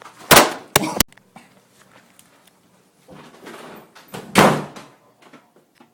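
A run of loud bangs and slams from a man losing his temper in a kitchen: three sharp bangs in the first second, then rougher crashing about three seconds in and a loud thump a little after four seconds.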